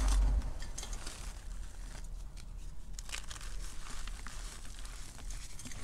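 Hands crushing and crumbling gym chalk with crunchy cornstarch centers into loose powder: soft, scattered crunching and crackling. A dull press into the powder at the start and a sharper crunch about three seconds in.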